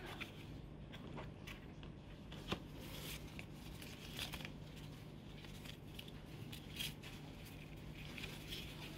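Paper rustling and crinkling as a folded instruction leaflet and card insert are handled and unfolded, with a few scattered light clicks and taps, over a faint steady low hum.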